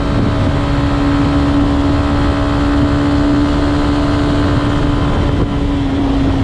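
Yamaha Y15ZR's 150 cc single-cylinder four-stroke engine, on its standard exhaust, running at a steady cruising speed, its note easing slightly near the end. Wind rumbles on the microphone underneath.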